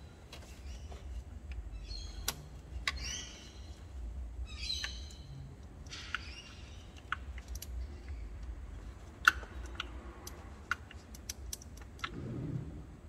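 Scattered sharp metallic clicks and clinks of a socket wrench and tools on the engine as a bolt is worked loose, with a few bird chirps in the background early on and a low steady hum underneath.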